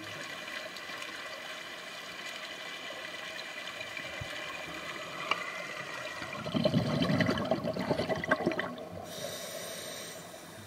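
Scuba regulator exhaust bubbling underwater: a scuba diver breathes out, giving about two seconds of dense, crackling bubbling about two-thirds of the way in. It sits over a steady underwater hiss.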